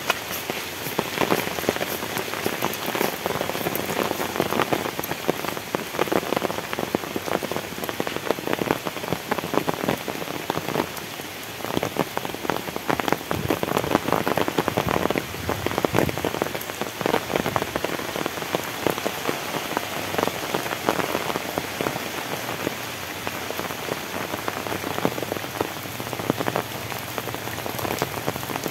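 Heavy tropical rain falling steadily, a dense, unbroken spatter of many close drop impacts.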